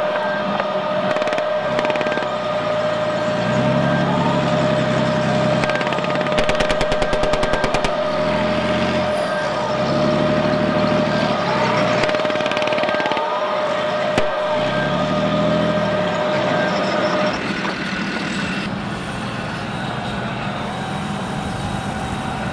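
Electronic sound effects from a radio-controlled model M1 Abrams tank: a steady whine that cuts off suddenly near the end, engine revs that swell and fade three or four times, and a short rapid burst of machine-gun fire about seven seconds in.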